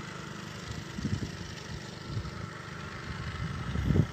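Fishing boat's engine running steadily at low speed, an even low chugging, with a brief louder swell about a second in and a stronger one near the end.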